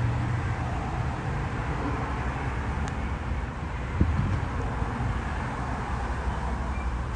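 Steady outdoor background noise: a low rumble with a hiss over it, with a single tap about four seconds in.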